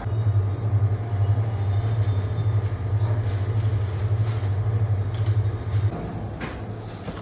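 Steady low drone of a car moving, heard from inside the cabin. It drops away about six seconds in, with a few light clicks near the end.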